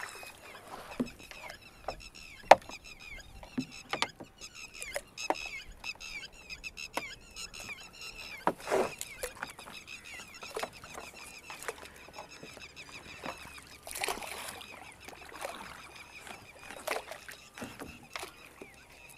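Water splashing and wooden knocks from a small boat being poled along while a fishing net is paid out over its side, with one sharp knock about two and a half seconds in. High chirping, likely birds, runs steadily in the background.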